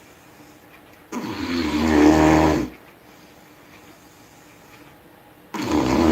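A person snoring loudly: two snores about four seconds apart, each a low buzzing breath of about a second and a half that grows louder before cutting off, the second beginning near the end.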